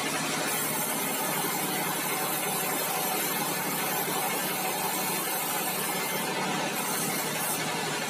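Band sawmill running: a steady mechanical drone with a hiss over it, holding an even level throughout.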